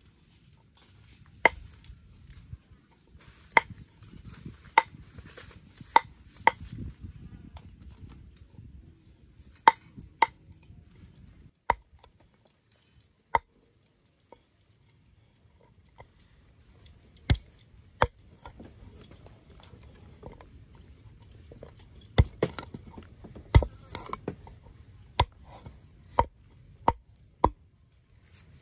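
Meat cleaver chopping the claw tips off raw chicken feet on a thick round wooden chopping board: sharp single knocks of the blade on the wood, irregularly spaced a second or two apart, with a pause of a few seconds midway.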